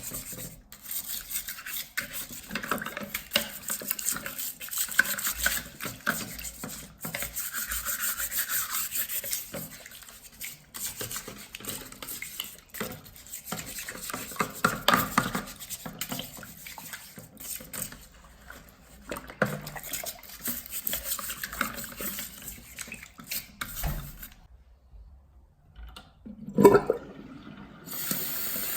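Hand scrubbing and rubbing with water while cleaning a washing machine, irregular and with occasional knocks. A loud knock comes near the end, followed by a steady rush of running water.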